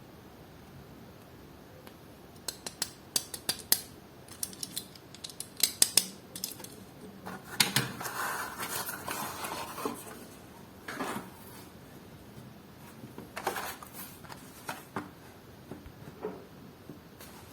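Toy-car packaging being handled and opened: scattered sharp clicks and taps, with a rustling stretch of about two seconds in the middle.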